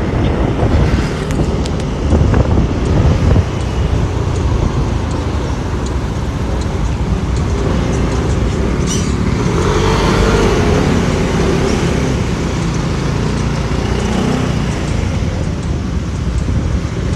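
Motorbike and scooter engines with steady road and traffic noise from a slow-moving line of bikes in town traffic, swelling briefly about ten seconds in.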